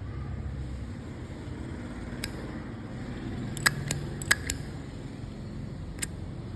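A Zippo lighter being handled: about six short, sharp clicks scattered over a few seconds, over a steady low background hum.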